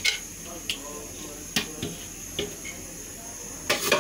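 Light clinks and knocks of kitchenware and a metal pan, about half a dozen spread over four seconds with the loudest near the end, over a faint steady hiss.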